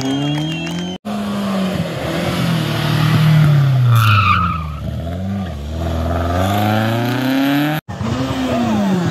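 Classic rally cars driven hard through a tight hairpin, mainly a red Alfa Romeo coupé, engines revving up and down with the gear changes and throttle. A brief tyre squeal about four seconds in. The sound cuts off abruptly twice, about a second in and near the end.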